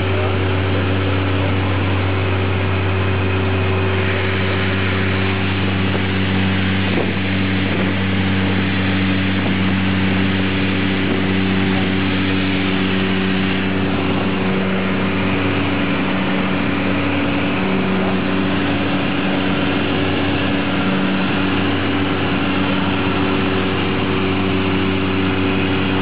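Cockpit noise of a Dornier Do 128 twin turboprop in cruise: a steady drone of engines and propellers with several low humming tones and a rushing hiss of airflow, unbroken throughout.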